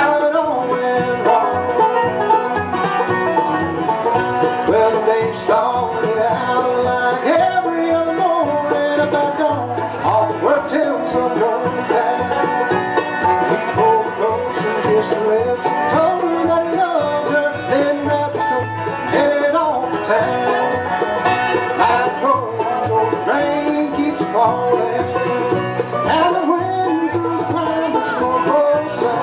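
Live bluegrass band playing at full tempo: rolling banjo over mandolin, resonator guitar, acoustic guitar and upright bass.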